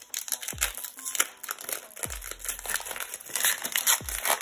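Plastic foil wrapper of an Upper Deck hockey card pack crinkling as it is worked and torn open by hand.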